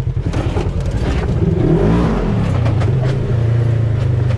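Polaris RZR side-by-side's engine running as it is driven over a rough dirt trail, heard from inside the cab. The engine pitch rises and falls around the middle, then holds steady, with scattered knocks and rattles from the machine going over bumps.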